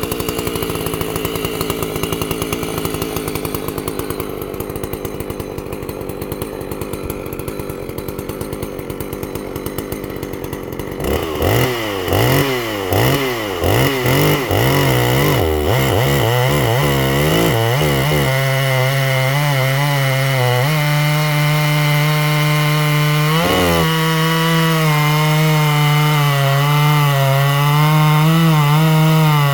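Ported and polished Husqvarna 268 two-stroke chainsaw with a 50mm cylinder idling with an uneven pulse, then revved in about seven quick throttle blips. It is then held at high revs, with short dips in pitch about 20 and 23 seconds in.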